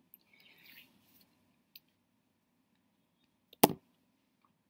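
Quiet room with faint rustling from handling, then one sharp click about three and a half seconds in.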